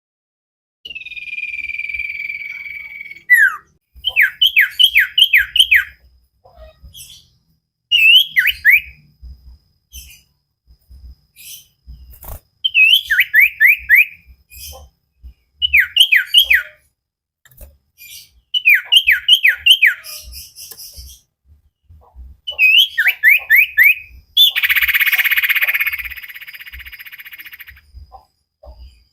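Cipoh (common iora) singing: repeated bouts of four or five quick down-slurred whistled notes every few seconds, with a long held whistle about a second in and a harsh, raspy call a few seconds before the end.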